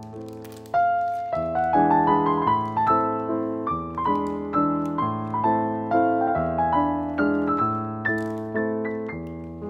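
Background piano music: a gentle melody of single notes and chords, each struck and left to fade, about two a second.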